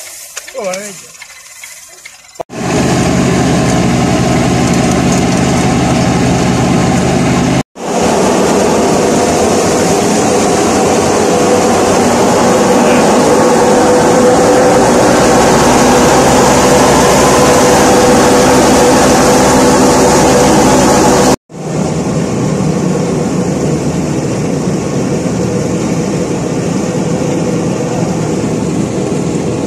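Tractor-driven wheat thresher running at full speed: a loud, steady machine noise of the beating drum and fan together with the tractor engine. It starts after a couple of seconds of voices and breaks off abruptly twice.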